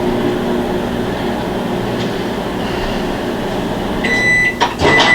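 Microwave oven running with a steady hum through a short heating cycle, then beeping near the end as the cycle finishes, with a clunk between the beeps.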